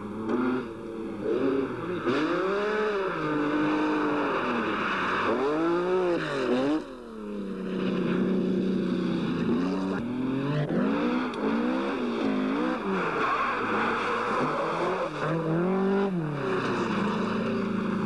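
Rally car engines revving hard at speed, their pitch repeatedly rising and falling as the drivers accelerate, change gear and lift off, with a brief drop about seven seconds in.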